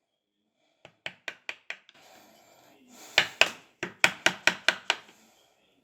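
Sharp knocks of a hand tool on a wooden screwdriver handle, about five a second, in two runs with a short scraping sound between; the second run is louder. The tool is cutting grooves into the handle.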